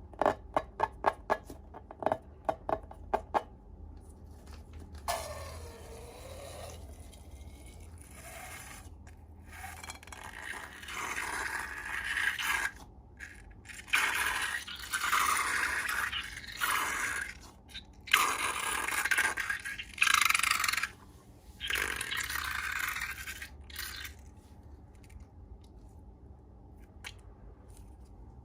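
Slime being handled: a quick run of about a dozen sharp, sticky clicks, then several bouts of crackling, scraping noise as the slime is worked.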